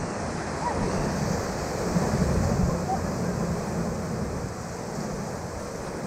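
Whitewater rapids rushing steadily around a raft, with wind buffeting the microphone as a low, uneven rumble.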